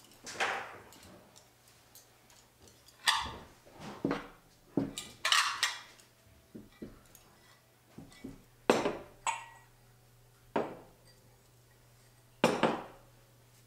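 Plates and cutlery set down one at a time on a wooden coffee table: about ten separate clinks and clatters, each with a short ring, spaced irregularly a second or so apart.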